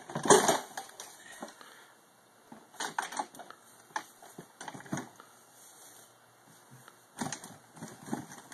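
Irregular knocks, crunches and clatter from an old Kawasaki Drifter snowmobile being rocked and pulled loose from a tree grown into it, with the loudest thud just after the start and further clunks spread through the rest.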